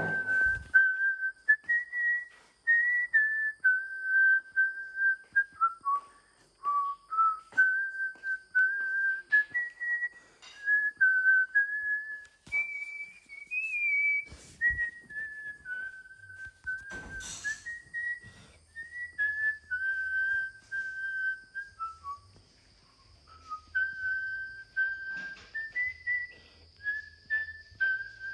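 A person whistling a slow tune, holding notes and stepping up and down in pitch, with occasional knocks and clatters of things being handled underneath.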